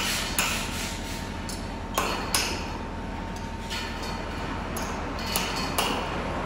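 A hammer striking a steel connecting pin in a tower crane's lattice jib, knocking the pin out so the crane can be dismantled. About ten sharp metallic blows come at uneven spacing, some in quick pairs, each with a short ring.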